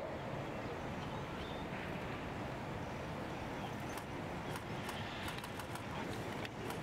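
Outdoor ambience during a moment of silence: a steady background hush with no voices, and a few faint sharp clicks scattered through it.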